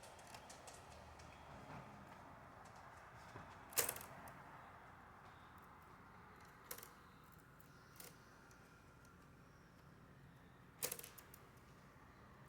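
Typewriter keys struck now and then: four sharp, isolated clacks a few seconds apart over faint room noise, the first and last the loudest.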